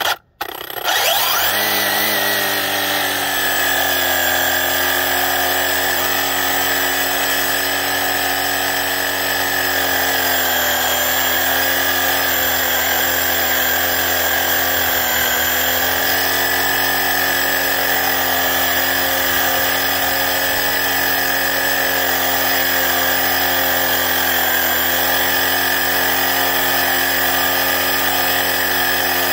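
Redcat Lightning STK RC car's electric motor and drivetrain at full throttle in a burnout, the car held still while its wheels spin on asphalt. It is a steady, loud, high whine that climbs to pitch in about a second and then holds, with a few slight dips in pitch.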